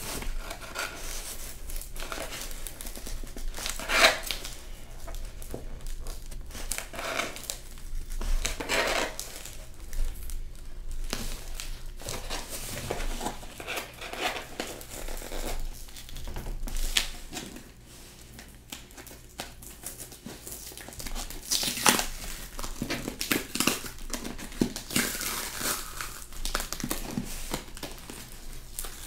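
A mailed package being opened by hand: irregular crinkling, scraping and tearing of the packaging, with a few sharper snaps along the way.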